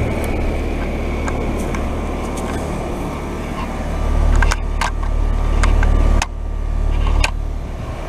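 Carrier Comfort Series heat pump outdoor units running in heat mode: a steady hum of compressors and condenser fans. A few sharp clicks and knocks of handling noise come in from about four and a half seconds on, and the low hum drops suddenly a little after six seconds.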